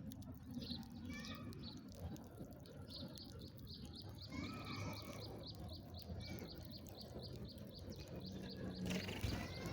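Small songbirds calling: a few scattered chirps, then a rapid, even series of short high notes, about four a second, over a low background rumble.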